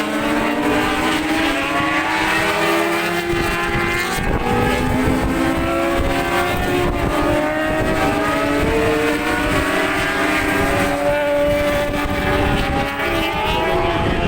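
A pack of 600cc Supersport racing motorcycles passing at high revs, several engine notes overlapping and sliding up and down in pitch as the bikes go by and shift gear. Wind rumbles on the microphone underneath.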